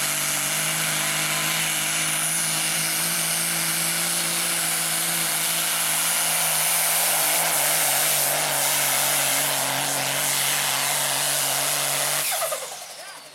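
Diesel engine of a pulling semi truck running flat out under load, a steady loud roar at constant high revs as it drags the sled. The sound drops away sharply near the end.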